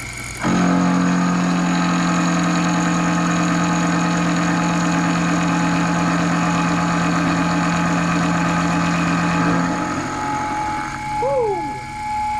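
Sherline CNC mill's 1/4-inch four-flute carbide end mill cutting 1018 steel at 2700 RPM and 5 inches per minute. It makes a loud steady hum with overtones that starts about half a second in and drops away near the end as the cut finishes, while the spindle keeps running. The spindle motor is struggling to power through the cut at this feed.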